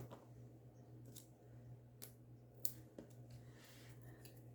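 Faint, scattered clicks and taps of small paper pieces and foam dimensionals being handled, over a low steady hum.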